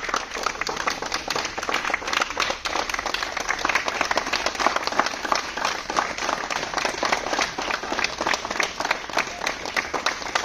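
Group of people clapping their hands, many quick overlapping claps that keep going without a break.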